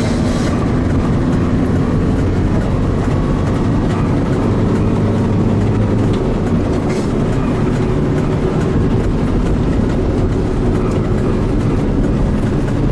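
Steady engine and tyre noise of a vehicle driving along a road, heard from inside the cabin as a continuous low rumble.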